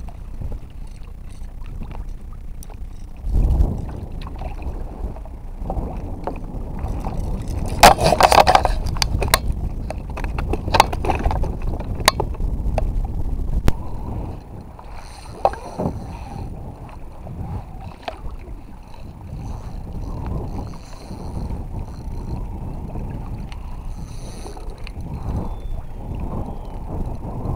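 Sounds of a kayak on the water: a steady low rumble, with a run of knocks and rattles against the boat loudest about eight seconds in and another knock a little later.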